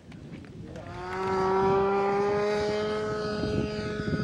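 Radio-controlled model airplane's engine running at high throttle as the plane flies by: a high, steady whine that comes in about a second in, getting louder and rising slightly in pitch before holding steady.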